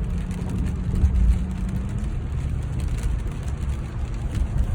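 Driving noise inside the cabin of a 2002 Lexus LS430 on a wet road: a low, steady rumble of tyres and engine, with a faint hiss above it.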